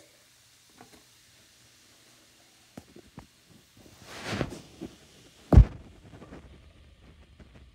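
A few small handling clicks and a brief rustle, then one sharp, loud thump about five and a half seconds in as a red mould holding a large bath bomb is set down in a sink basin.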